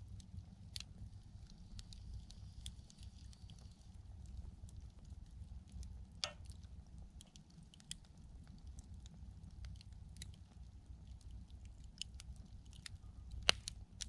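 Wood campfire crackling: irregular sharp pops and snaps over a low steady rumble, with one louder pop about halfway through and the loudest one near the end.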